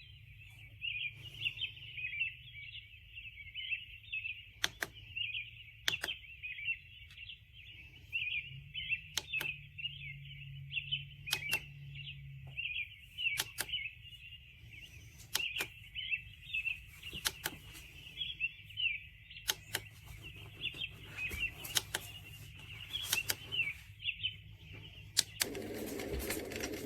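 A white-noise sound machine plays one of its nature sounds through its small speaker: a continuous high, fluttering chirping with scattered sharp clicks. Near the end it changes to a musical track.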